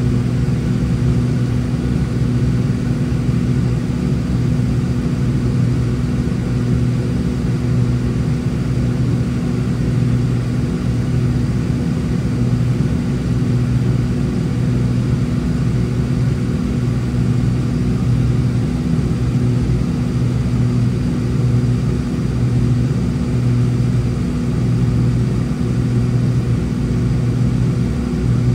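Steady drone of a Cessna 402C's twin turbocharged six-cylinder piston engines and propellers, heard inside the cabin, with a strong low hum that holds at a constant pitch.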